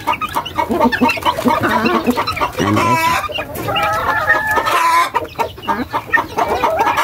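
A flock of chickens clucking and calling over one another without pause as they feed at a trough.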